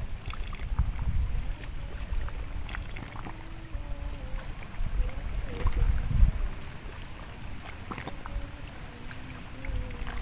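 Shallow water sloshing and lapping as a hand works a thin eel-fishing line into a hole under a mud bank, with a few small splashes. Wind rumbles unevenly on the microphone.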